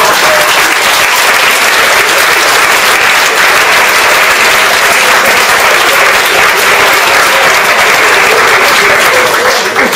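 Theatre audience applauding steadily, the clapping fading out near the end.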